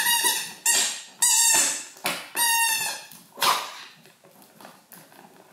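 Squeaky rubber eagle-shaped dog toy squeezed in a hand, giving about five short, high-pitched squeaks in quick succession, then falling quiet for the last couple of seconds.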